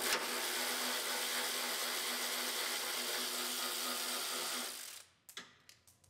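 Cordless electric ratchet running steadily for about five seconds as it backs out a bolt holding a car's front bumper energy absorber, then stopping, followed by a few light clicks.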